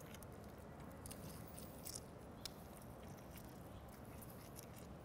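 Lime juice dripping onto chopped cilantro in a glass bowl: faint, scattered ticks over a quiet, steady room hum.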